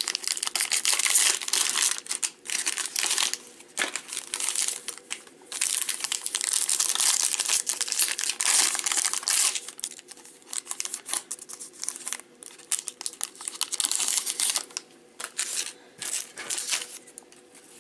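Cellophane wrapper of a trading-card pack crinkling as it is handled and torn open, in irregular bursts that thin out near the end.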